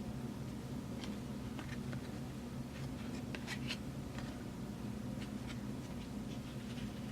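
Trading cards being handled and slid against one another: faint scattered light clicks and scratchy rustles, busiest in the first half, over a steady low hum.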